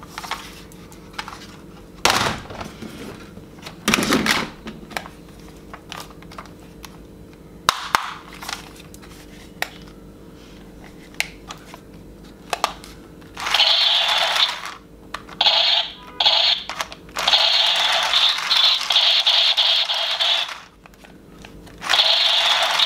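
Plastic toy guns knocking and clattering as they are handled, then a battery-powered light-up toy revolver's electronic firing sound effect: loud, rapidly pulsing bursts that start about halfway through, cut out and restart several times.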